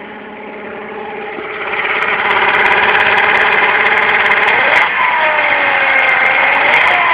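Kymco Agility 50 scooter engine idling, then throttled up about two seconds in, its pitch falling and rising again in the second half, with scattered sharp clicks over it. The owner is chasing an unexplained noise from the CVT drive near the rear wheel, present at idle and when the throttle is opened.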